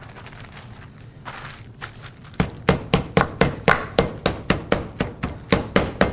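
Meat mallet pounding a chicken breast flat inside a plastic bag on a cutting board, flattening it to an even thickness. After a brief rustle, the blows start about two and a half seconds in as a steady run of sharp thuds, about three to four a second.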